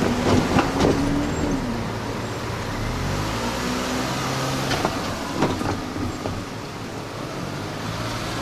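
Container freight train rolling past, with wheels clacking over rail joints, three in quick succession at the start and two more midway.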